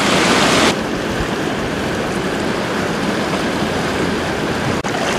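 Swollen creek rushing over rocks in high flow: a steady wash of white-water noise, a little louder for the first moment, with a brief break near the end.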